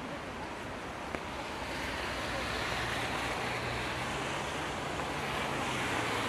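Steady hiss of light rain outdoors, with a low steady hum joining about two and a half seconds in.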